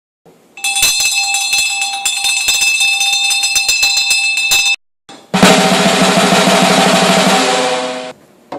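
Sound effects: a rapid, uneven rattle of sharp strikes over a steady ringing tone lasts about four seconds and stops abruptly. After a brief gap comes a dense, noisy blast with low tones underneath, lasting about three seconds.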